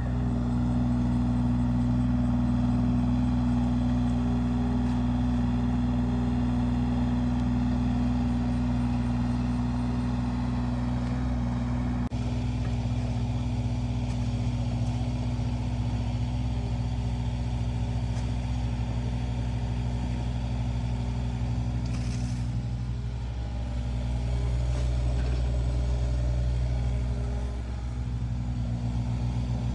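Heavy diesel engine of an excavator running steadily, with a sharp click about twelve seconds in.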